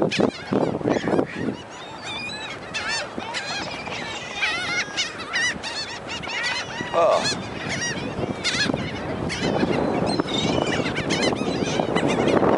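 A flock of seagulls calling: many short, high, squealing calls overlapping, from birds crowding in to be fed. A rushing background noise grows louder near the end.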